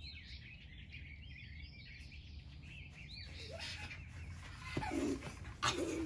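Songbirds chirping over a low, steady outdoor rumble. From about halfway, short rising-and-falling pitched cries join in and grow louder near the end.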